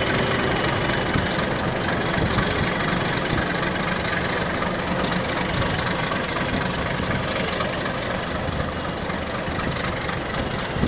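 Diesel-electric locomotive engine running steadily at low throttle as the locomotive creeps slowly forward and comes to a stop.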